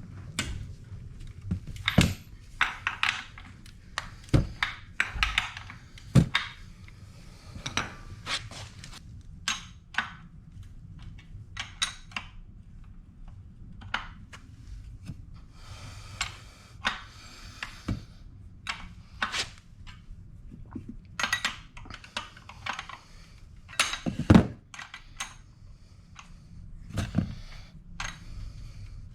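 Metal hand tools and scooter parts clinking and knocking in an irregular series of sharp taps, with a louder thump about 24 seconds in.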